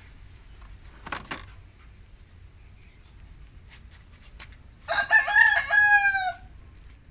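A rooster crowing once, about five seconds in: a single call lasting about a second and a half that drops in pitch at the end.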